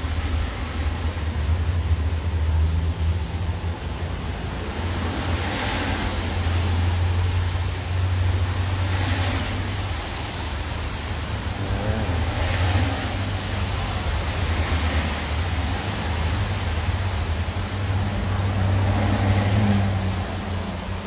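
Street traffic on a wet road: a steady low rumble with several cars swishing past on the wet pavement every few seconds.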